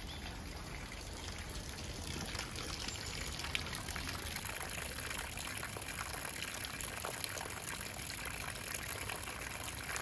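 Water pouring steadily from bamboo spouts into a granite chozuya, a shrine purification basin, splashing as it falls.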